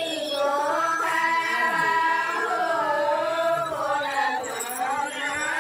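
Singing voice holding long, drawn-out notes that slide up and down in pitch, as in a background song.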